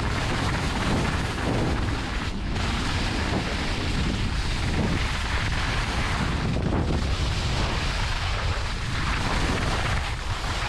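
Wind buffeting the microphone of a skier's helmet camera on a fast downhill run, a steady loud rumble, with the hiss and scrape of skis running over firm, icy snow.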